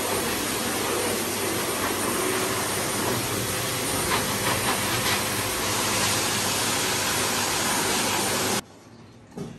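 Pet grooming blow dryers blowing a steady, loud rush of air over a Rottweiler's coat. They cut off suddenly about eight and a half seconds in.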